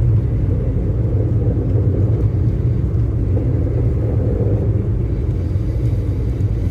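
Steady low rumble from a 2017 Toyota Pixis Mega G Turbo kei car, even throughout with no separate knock or squeal standing out.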